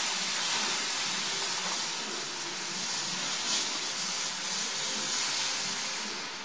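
Compressed air hissing out of a Toyota 4Runner's air-suspension bags as they are let down, the body settling onto them. The steady hiss starts to fade near the end as the bags empty.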